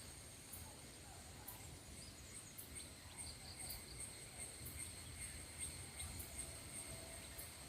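Faint outdoor background with a steady high-pitched insect trill and regular chirps about once a second, over a low rumble.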